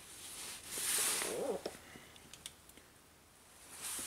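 Hands working a wiring connector: brief rustling, a few small clicks and a short squeak, louder about a second in and again near the end.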